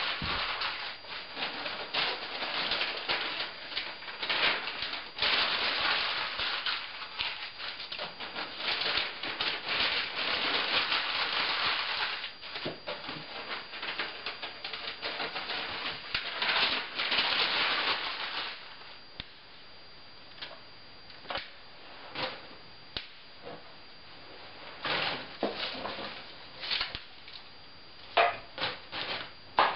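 Newspaper being crumpled and torn by hand, a dense continuous crackling for the first two-thirds. After that, quieter separate knocks and clatters as kindling sticks are laid into a cast-iron potbelly stove.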